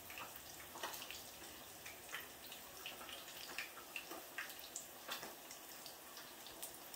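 Faint, scattered little clicks and crunches over a low hiss, from crispy breaded fried fish being handled with the fingers and chewed.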